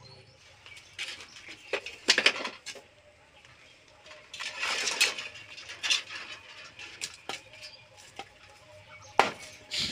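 A knife chopping and splitting bamboo: irregular sharp knocks and cracks, with a longer rasping split about halfway through.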